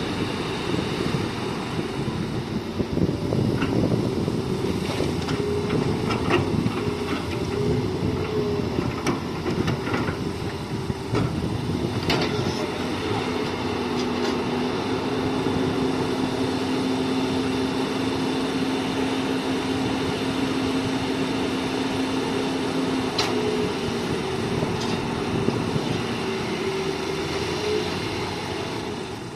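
Hitachi hydraulic excavator working, its diesel engine running steadily under load with a held steady tone through the middle and a few sharp knocks.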